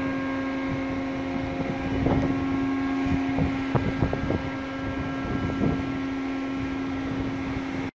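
Wind gusting over the microphone on the deck of a container ship at sea, over a steady machinery hum from the ship. The gusts come and go irregularly, most often in the middle of the stretch.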